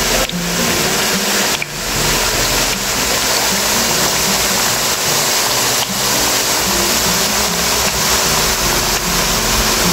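Plantain slices deep-frying in hot oil, the oil sizzling and bubbling steadily as the chips cook.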